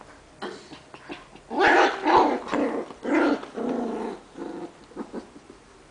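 Puppies growling in play while tugging at a rug together, in a run of short rough growls from about a second and a half in.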